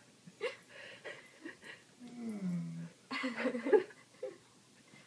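Big corgi grumbling and snuffling around a salmon-skin treat held in its mouth. About two seconds in there is a low groan that falls in pitch, then a louder breathy snuffle.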